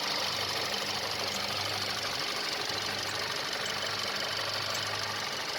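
A 2021 Kia K5's turbocharged GDI four-cylinder engine idling steadily, heard with the hood open.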